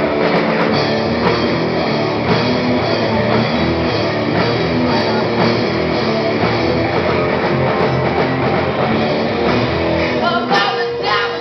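Live rock band playing loud, with two electric guitars, bass guitar and drums.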